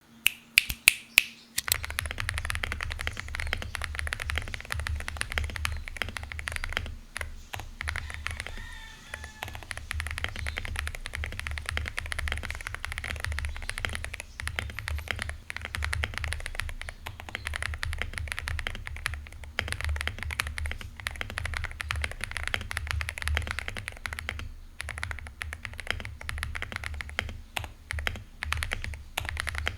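Akko 5098B mechanical keyboard with V3 Piano Pro linear switches being typed on: a few loud single keystrokes at the start, then fast, continuous typing with a deep, thocky clack.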